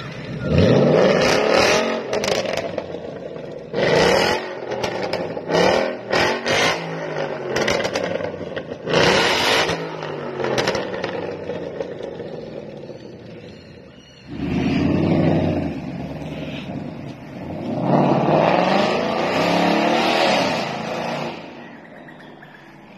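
Ford Mustang GT (sixth generation) 5.0-litre V8 revving through an ARMYTRIX cat-back valvetronic exhaust. It gives a series of quick throttle blips in the first ten seconds, then two longer revs that rise and fall, one past the halfway point and one near the end.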